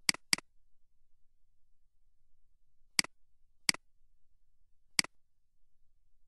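Computer mouse buttons clicking: a quick double-click right at the start, then three single clicks about 3, 3.7 and 5 seconds in, over near silence.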